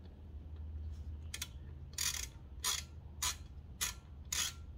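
Hand ratchet wrench clicking in a run of short strokes, about six of them, starting about a second and a half in, as a fender-mount bolt is turned in.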